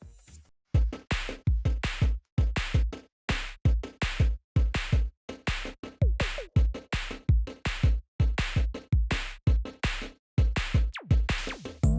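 Electronic background music with a heavy drum-machine beat, which comes in loud a little under a second in after a quieter passage.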